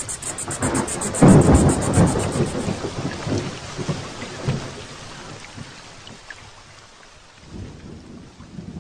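Thunder rumbling loudly about a second in and slowly dying away over several seconds, with a fainter rumble near the end, over steady rain.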